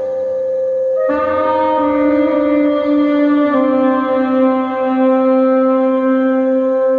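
An alto saxophone and a second wind instrument playing together in long held notes. One note is held steady throughout while the other part moves to a new note about a second in and again a few seconds later.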